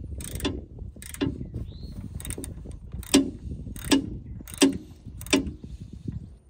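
Socket ratchet wrench clicking in short bursts, about one every three-quarters of a second, as it turns out the oil drain plug on a pressure washer's small engine.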